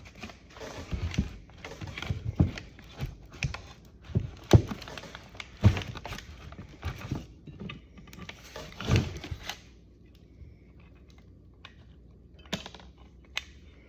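Irregular clicks, taps and knocks of hand work on a steering knuckle as a thin shim is worked into place, with the loudest knocks around four and a half, six and nine seconds in. It goes quieter about ten seconds in, with two last clicks near the end.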